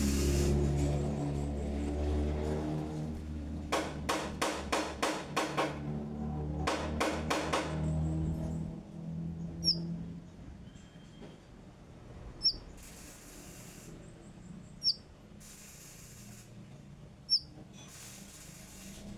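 A loud low drone made of steady tones, with a quick series of sharp clicks over it, fades out about halfway through. Then a konin songbird gives four short, high chirps, each about two and a half seconds apart, between brief patches of hiss.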